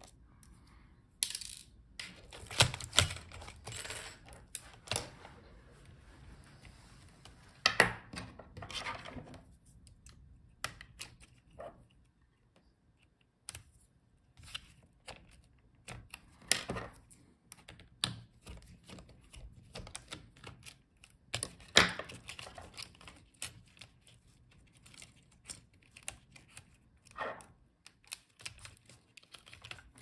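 Irregular small clicks, taps and clatters as a precision screwdriver, tiny screws and small metal and plastic parts of a laptop are handled, while the motherboard is unscrewed and its connectors unplugged. There is a short quiet spell about twelve seconds in.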